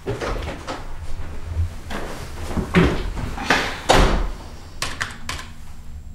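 Scattered thumps and rustles of movement in a small office, the loudest a dull thud about four seconds in. Then a few quick computer keyboard clicks.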